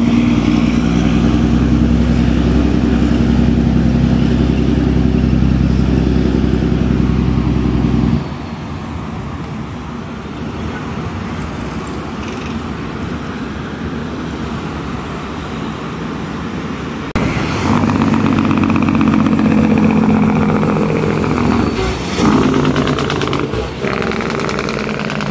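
Loud heavy diesel truck engines in a series of clips. The first engine sound is loud and low, and cuts off abruptly about eight seconds in. Quieter road noise follows, then a second loud truck engine cuts in suddenly about seventeen seconds in.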